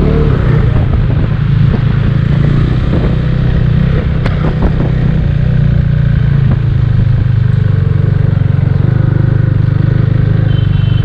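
KTM Duke 390's single-cylinder engine running through a freshly fitted Akrapovic R1M-type aftermarket exhaust while riding, a steady exhaust note with a few sharp clicks about four seconds in.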